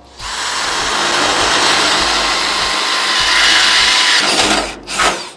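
Cordless drill boring a hole through the griddle's sheet-metal side shelf, the bit grinding through the metal for about four and a half seconds. It cuts out, then there is one short burst near the end.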